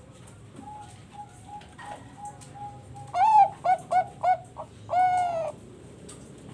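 Bangkok perkutut (zebra dove) cooing: a run of soft short notes, then a loud phrase of quick clipped coos ending in one long drawn-out coo.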